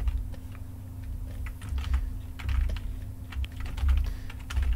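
Computer keyboard keys clicking irregularly, a few presses at a time, over a steady low hum.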